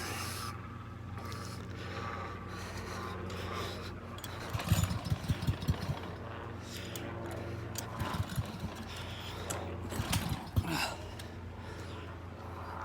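Recoil pull-starter on a pressure washer's small gasoline engine yanked three times, cranking the engine without it catching.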